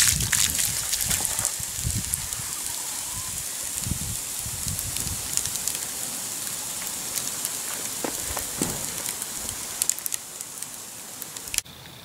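Water poured into a burning Swedish torch (split-log fire), splashing on the charred wood and hissing as the fire is put out, with scattered crackles. The splashing dies away after about five seconds while the steam keeps hissing, then the sound cuts off abruptly near the end.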